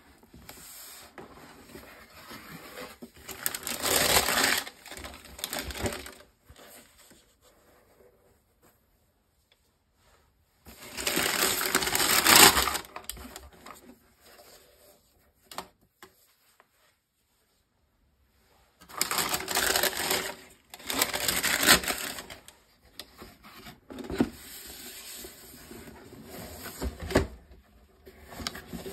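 Cardboard shoebox and tissue paper being handled by gloved hands: rustling, scraping and cardboard rubbing in several separate bursts with quiet gaps between them. The loudest bursts come about halfway through and again two-thirds of the way in.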